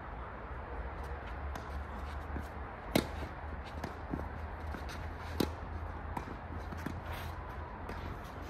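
Two sharp tennis ball impacts during a rally, the first about three seconds in and the second about two and a half seconds later, with fainter scuffs and ticks between them over a steady low rumble.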